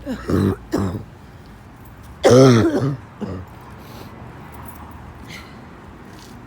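A person coughing and clearing their throat: two short coughs in the first second, then a louder, longer cough with voice in it a little after two seconds, and a small one after it.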